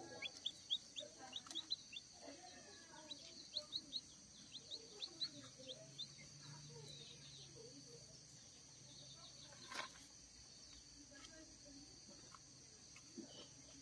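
Newly hatched kampung chicken chicks peeping faintly in quick, short high chirps, thickest in the first half, with soft low sounds beneath and a single knock about ten seconds in.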